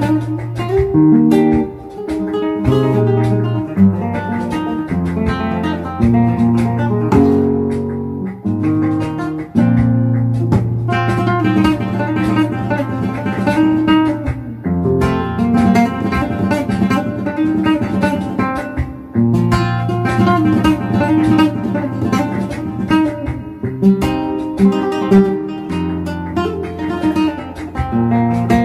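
Background music: acoustic guitar in a flamenco style, plucked notes over a steady bass, with a stretch of fast strumming partway through.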